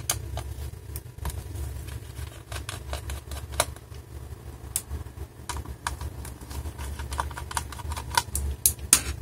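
Irregular small clicks and taps of a screwdriver and fingers on the screws and plastic of a Dell laptop battery as it is unscrewed and handled, over a steady low hum. The loudest clicks come near the end.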